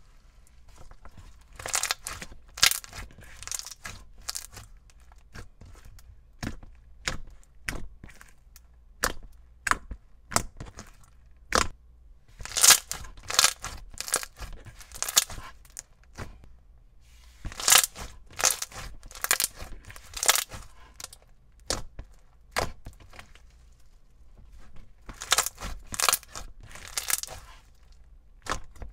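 Thick, glossy beaded slime being stretched, folded and pressed by hand: a run of sharp sticky pops and clicks, thickening into dense crackling four times, about two, twelve, eighteen and twenty-six seconds in.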